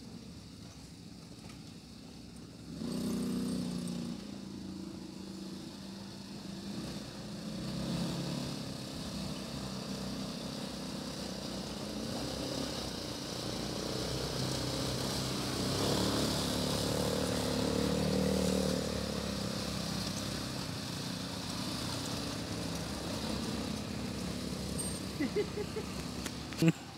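Quad bike (ATV) engines running as the bikes climb a dirt track, the engine note rising and falling with the throttle. The sound grows louder after a few seconds and is loudest midway, as one quad passes close by.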